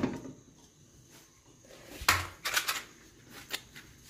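Empty aluminium pressure cooker pot handled on a gas stove: one sharp knock about two seconds in, then a few lighter metallic clicks.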